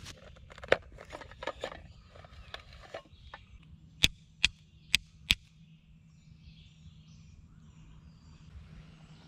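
Rustling in dry leaves, then four sharp clicks in about a second and a half as flint is struck on steel, throwing sparks that leave a small ember glowing in the tinder.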